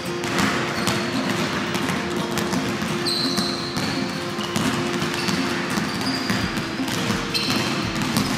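Basketballs bouncing on a sports-hall floor as players dribble through a drill, with background music underneath.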